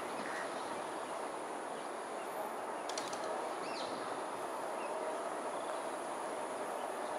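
Steady outdoor background noise with a thin, high, unbroken insect drone, and a few faint short bird calls: one at the start, a few sharp notes about three seconds in and a brief sliding call just after.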